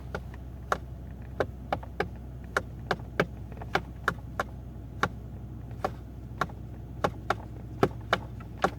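Sharp, irregular knocking in the cabin of a Mercedes W221 S600, about two knocks a second, over the steady low hum of its idling engine. This is the cabin knock being traced; the mechanic jokes it could be a coin dropped into the heater.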